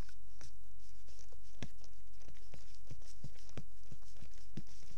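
A fork stirring homemade glue slime in a bowl, knocking and clicking irregularly, about three times a second. A steady low hum runs underneath.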